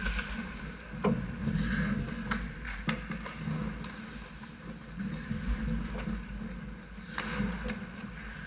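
Ice hockey play on the rink: skates scraping the ice and the sharp knocks of sticks and puck, the loudest about a second in, over a low steady rumble.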